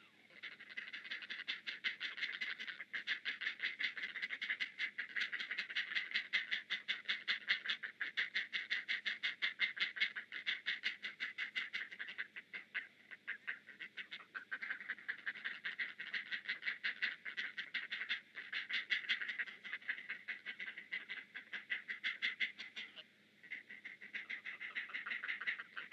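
Great blue heron chicks giving rapid, clacking food-begging calls in long runs, with a pause about halfway and a short break near the end. This is the chatter of chicks begging as a parent regurgitates food at the nest.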